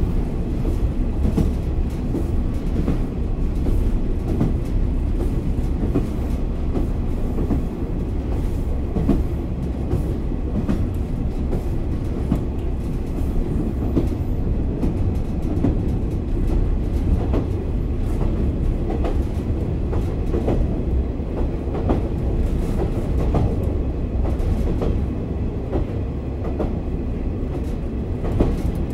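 Interior sound of a JR Kyushu KiHa 40 8000-series diesel railcar, re-engined with a Komatsu diesel engine, under way: a steady deep engine drone and wheel-on-rail rumble with frequent short clicks, heard from inside the passenger cabin.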